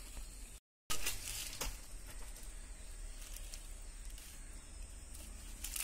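Quiet outdoor background with a steady low hum and faint hiss. The sound cuts out completely for a moment near the start, and a couple of soft ticks or rustles follow about a second in.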